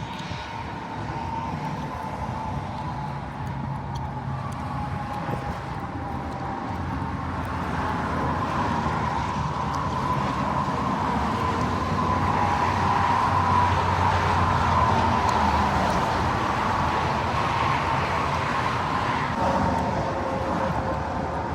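A motor vehicle running, with steady engine and road noise that grows gradually louder and a faint steady whine above it.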